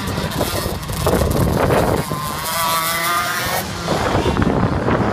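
Go-kart engine running at speed as the kart drives past, its note holding clearly for a second or so near the middle before fading back into a rougher noise.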